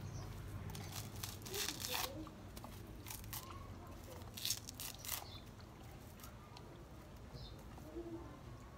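A husked coconut being struck and worked with a short wooden stick to crack it open: a few soft, scattered knocks and crackling, scraping sounds on the shell.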